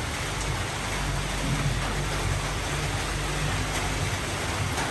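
Steady, even hiss of noise with a faint low hum underneath and a few light ticks.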